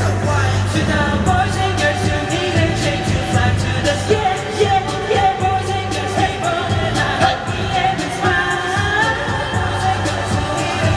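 K-pop song with singing over a steady, heavy bass beat.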